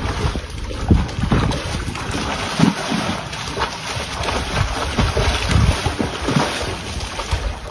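Pool water splashing and churning as a dog paddles and dives, in irregular splashes, with wind buffeting the microphone.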